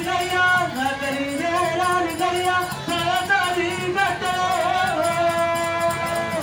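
Telugu folk singing with percussion accompaniment: one voice sings a winding melody in short phrases, ending on a long held note near the end.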